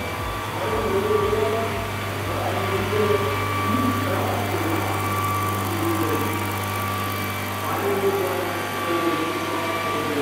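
Electric-powered scale RC model of a Boeing-Vertol CH-47 Chinook hovering, its two rotors making a steady low hum with a thin, even whine from the electric motors.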